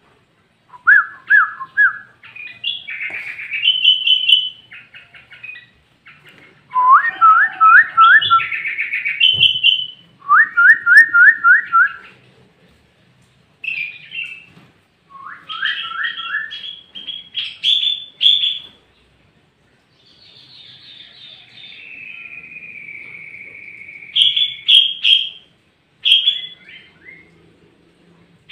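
Sooty-headed bulbul (kutilang) singing in loud bursts of quick rising whistled notes and chattering trills, separated by short pauses. Later a long buzzy note is held steady for about four seconds before the phrases resume.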